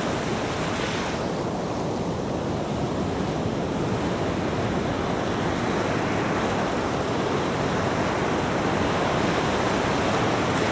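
Sea surf breaking and washing up on a beach: a steady wash of water that eases about a second in and swells again from about halfway through.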